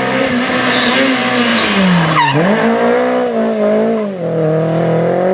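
Renault Clio Williams rally car's 2.0-litre four-cylinder engine running flat out. About two seconds in the revs drop sharply and climb again as the car lifts off and goes down a gear, with a short squeal at that moment. A brief dip for a gearshift follows near four seconds, and then the engine pulls steadily at high revs.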